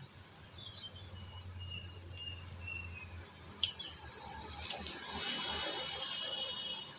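A bird chirps a short run of high notes. About halfway through comes a single sharp snip of bonsai cutters clipping a twig, then a couple of softer clicks, and a steady high insect trill sets in near the end.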